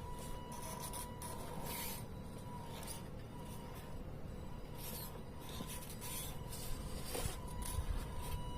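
Tamiya CR-01 radio-controlled crawler running: a steady electric motor and gear whine over a low rumble, with irregular short scraping and crunching noises.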